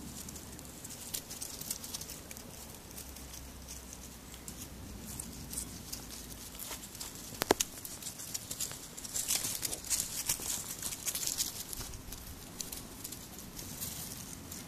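Puppies' paws scampering and rustling through dry leaves and grass, with a crackle that grows denser in the second half. A single sharp click about halfway through is the loudest sound.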